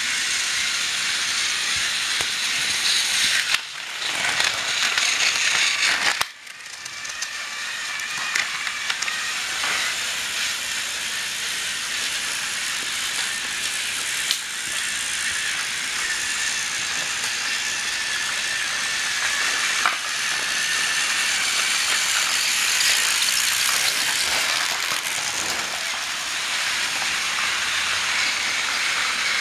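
Battery-powered TrackMaster toy train engines running on plastic track: a steady whir and rattle of small motors and wheels. The sound drops out sharply about six seconds in, then builds back up.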